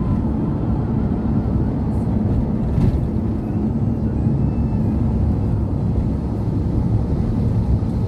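Steady low rumble of engine and tyre noise heard from inside a moving bus travelling along a road.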